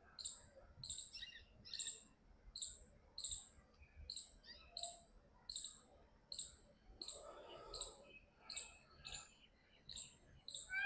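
Rhythmic high-pitched chirping, short repeated chirps about two to three a second, steady throughout.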